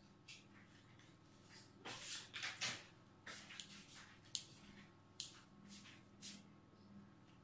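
Kitchen scissors snipping through slices of ham, a run of faint, crisp, irregular snips, with a short patch of rustling handling about two seconds in.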